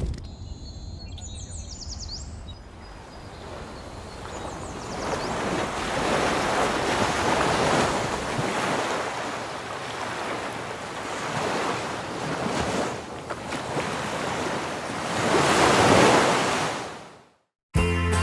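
Ocean surf: waves washing up and breaking in slow swells, the loudest about two-thirds of the way through and near the end, before the sound fades out. Music begins just as it ends.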